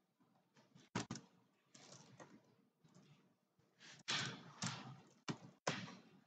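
Computer keyboard keys pressed in short irregular runs, with a few sharper clicks, as text is deleted with backspace.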